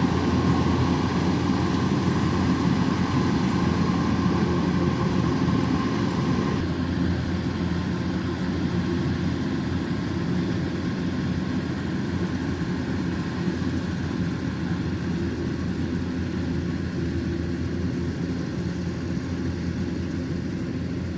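Kubota DC105X combine harvester's diesel engine running steadily as it harvests rice. A higher whine in the mix drops out about six seconds in.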